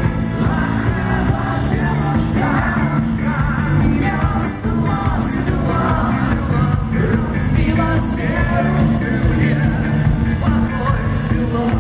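Live rock band playing loudly, with a voice singing over the band from about two seconds in.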